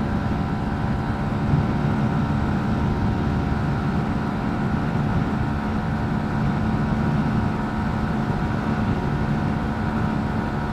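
Bajaj Pulsar NS160's single-cylinder engine running steadily at high revs in top gear, carrying a passenger near its top speed of about 136–139 km/h, with wind rushing over the microphone.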